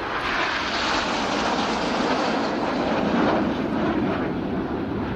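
Formation of four BAE Hawk T1 jets passing with a loud jet roar that swells in and falls in pitch as they go by.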